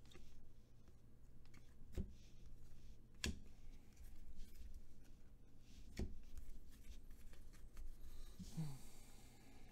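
Faint handling of a stack of Panini Select football trading cards: cards slid and flipped off the stack one by one, with a few sharp clicks as cards snap against the stack. A short rustle with a brief low sound comes near the end.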